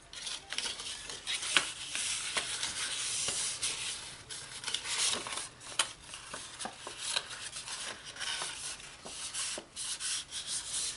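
Bone folder rubbing along the creases of scored designer paper, burnishing the folds, with sharp paper crackles as the sheet is creased and handled.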